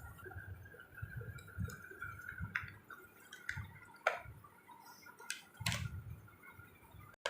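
Handling noises close to the microphone: a few light taps and clicks over soft low bumps, with a faint steady whine in the first half.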